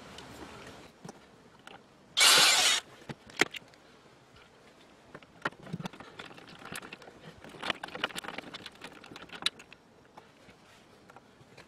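Small metallic clicks and ticks as screws are turned by hand through a perforated steel repair strip into a plastic housing, with one short loud burst of rushing noise about two seconds in.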